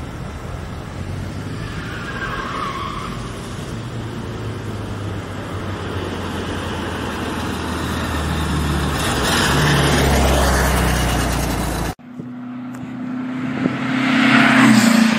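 Classic VW Beetle's air-cooled flat-four engine running as the car drives around, growing louder about nine to eleven seconds in. After a sudden cut near the end, a different engine note holds one pitch and builds in loudness.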